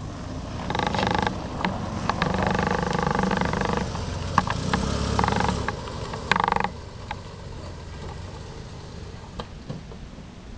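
Dry, unoiled tripod head squealing in several drawn-out squeaks as the camera is moved, with scattered clicks, over a low rumble; it quiets down after about seven seconds.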